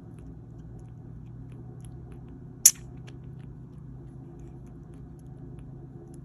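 Kitten suckling milk from a feeding bottle, with small wet sucking clicks, and one sharp click about two and a half seconds in.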